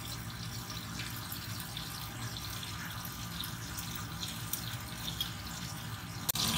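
Horumon (offal) frying in oil in a lidded frying pan: a steady sizzle with crackles of spattering oil, and a sharp click near the end.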